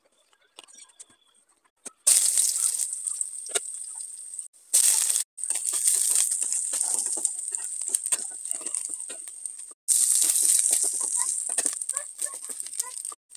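Small dried fish (mola shutki) sizzling and crackling in hot oil in a steel pan. The sizzle starts about two seconds in and cuts out briefly a few times.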